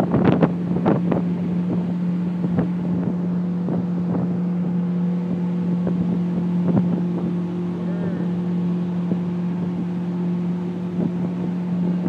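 Long boat's motor running steadily at speed, a constant low drone, over the rush of water along the hull and wind on the microphone. A few sharp knocks come in the first second.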